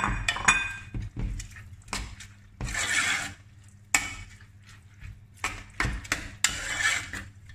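A metal utensil stirring brown rice in broth in a pot, clinking and scraping against the pot's sides and bottom: scattered sharp clinks and two longer scraping sweeps, about three seconds in and again near the end.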